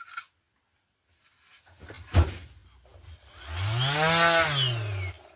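A sharp click about two seconds in, then a random orbital sander with a 5 mm stroke switched on briefly near the end: its motor hum rises in pitch as it spins up, then falls away as it coasts down.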